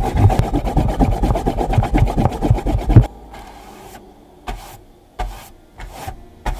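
A handheld eraser scrubbing fast back and forth over paper on a clipboard, rough and scratchy, stopping abruptly about three seconds in. A few soft, separate sounds follow.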